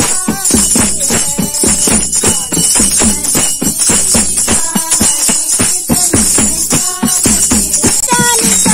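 Women's devotional kirtan sung in chorus, kept in time by a dholak drum beating about three strokes a second, with hand claps and jingling tambourine.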